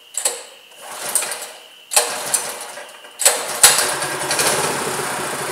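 Predator 212 single-cylinder four-stroke engine on a minibike being pull-started: several short pulls on the recoil, catching about three seconds in and then running steadily.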